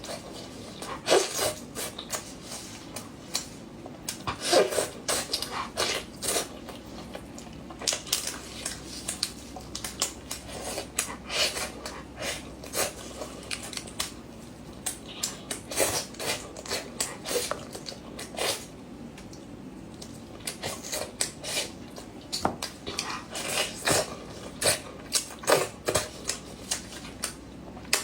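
A person eating fried meat and fish with rice: irregular chewing and mouth smacks mixed with clicks of tableware against dishes.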